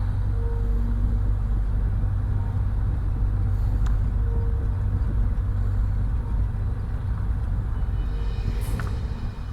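A steady low rumble, with a couple of faint clicks.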